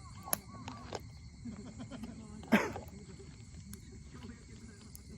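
Wood bonfire crackling, with scattered sharp clicks and one loud pop about two and a half seconds in, over a low murmur of distant voices.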